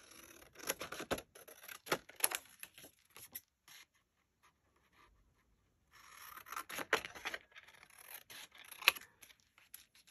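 Scissors snipping through a sheet of paper in a series of short cuts, a pause of about two seconds, then paper rustling with more snips.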